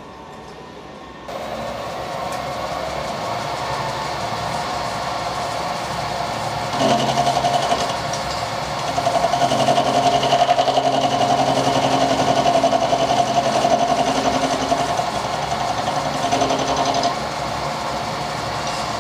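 Milling machine running: the spindle comes on about a second in with a steady hum, then the cutter bites into the steel of an old spanner's jaw face and the sound grows louder and harsher for most of the rest, easing back to plain running near the end.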